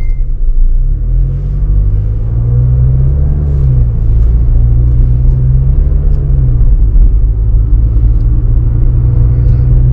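Mazda MX-30's 2.0-litre mild-hybrid petrol engine heard from inside the cabin as the car pulls away in traffic: a low, steady hum that rises a little in pitch over the first few seconds and settles back about six and a half seconds in.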